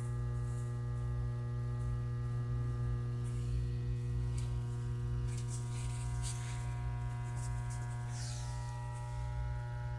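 Steady electrical mains hum, a constant low drone with a stack of fainter steady tones above it. A few faint rustles of handling come around the middle and near the end.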